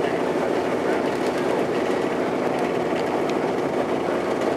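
Tour boat's engine running at a steady cruising speed, a continuous drone heard inside the wooden passenger cabin.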